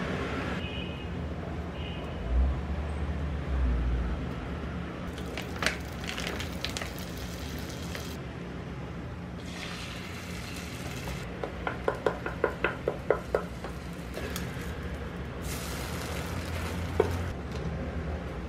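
Beaten egg frying in a non-stick electric cooking pot, with a light sizzle and occasional knocks of utensils. Near the middle comes a quick run of about eight taps.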